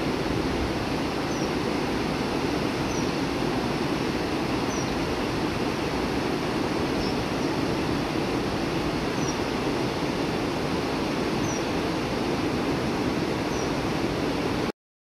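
Fast mountain river rushing over stones in a rocky gorge: a steady, unbroken rushing noise, with faint short high chirps every couple of seconds. The sound cuts off abruptly near the end.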